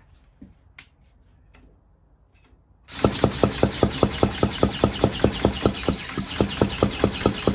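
Cordless drill spinning an old McCulloch chainsaw's engine over by the flywheel nut, starting about three seconds in: a steady drill whine with regular compression thumps, about five a second. The engine turns over but does not fire, for lack of spark.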